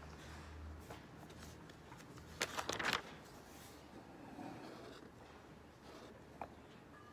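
Pen and highlighter on workbook paper: a short scratchy burst of pen strokes about two and a half seconds in, then fainter marking and small ticks, over quiet room tone. A low hum stops about a second in.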